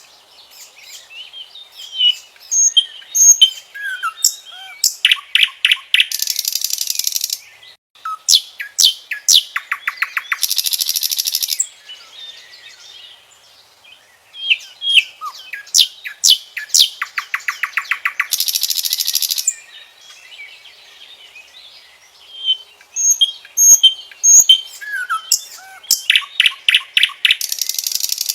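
Common nightingale singing: four phrases separated by short pauses, each running from soft scattered whistles and slurred notes into a rapid, evenly pulsed trill and a loud harsh buzzing rattle.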